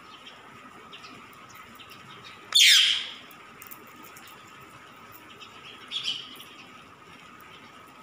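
Green parakeet calling: one loud, sharp screech about two and a half seconds in that falls in pitch, then a shorter, softer call about six seconds in, with a few faint chirps between.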